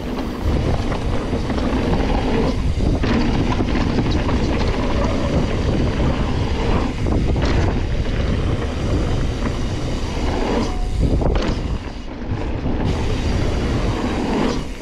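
Full-suspension enduro mountain bike descending a rough dirt trail: a steady noisy rush of tyres on dirt and rattling chain and frame, with several sharper knocks from bumps.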